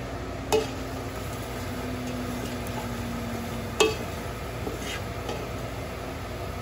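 A spoon stirring flour into butter and onions in a pot on the stove, a roux cooking with a low sizzle. The spoon knocks sharply against the pot twice, about half a second in and near four seconds in, with a few lighter taps after.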